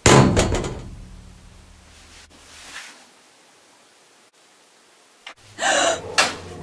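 A sudden heavy bang, the loudest sound here, with a low rumble dying away over about two seconds. About five and a half seconds in comes a second, shorter burst of noise and a sharp knock.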